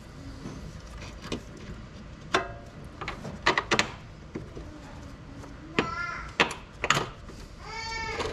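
Sharp metallic clinks and knocks of hand tools on the upper engine mount bolts, a handful of separate strikes. A young child's high voice calls out briefly near the middle and again, longer, near the end.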